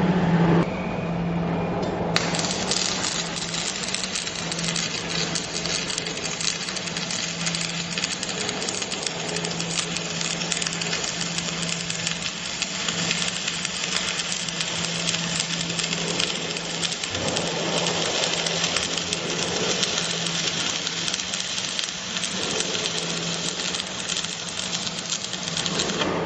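MMA (stick) arc welding with an MMA400 welder: the arc strikes sharply about two seconds in, then keeps up a steady, dense crackle and sizzle over a low hum.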